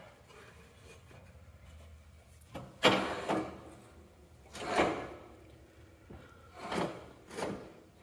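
Steel snow-blade frame being worked into the front mount of a Cub Cadet 782 garden tractor: a sharp metal clank about three seconds in, then a few scraping, sliding knocks of metal on metal.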